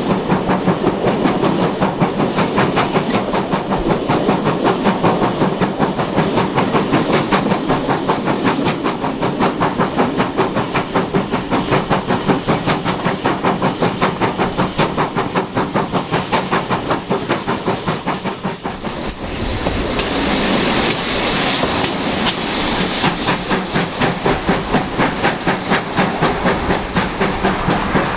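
GWR Manor-class 4-6-0 steam locomotive 7822 Foxcote Manor working under steam, its two-cylinder exhaust beating in a rapid, even rhythm heard from the train behind. About twenty seconds in, a loud hiss of steam rises over the beat for a few seconds.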